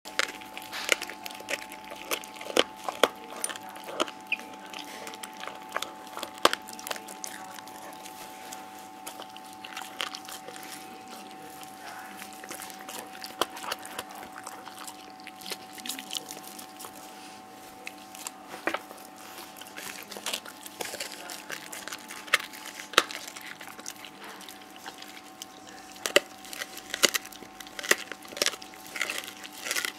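A Rottweiler chewing a raw deer bone: irregular sharp crunches and cracks of teeth on bone and gristle. They come thick at the start, thin out through the middle stretch, and pick up again near the end.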